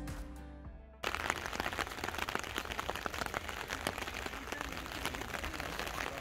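Rain falling on wet pavement and railings, a steady hiss dense with close drop ticks. It starts abruptly about a second in, as background music that was fading out cuts off.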